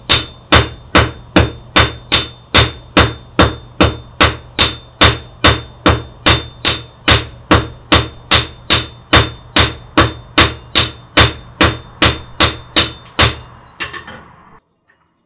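Hand hammer striking a hot iron nail rod on an anvil in a steady rhythm, a little over two blows a second, each blow ringing. This is drawing out the end of a hand-forged nail to a point. The hammering stops near the end.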